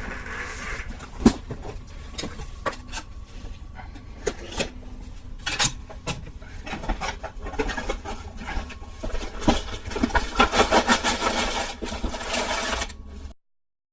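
Hands opening and handling a LEGO set's box and packaging: scattered clicks and knocks, one sharp knock about a second in, and a dense stretch of rapid rattling near the end before the sound cuts off suddenly. A steady low hum runs underneath.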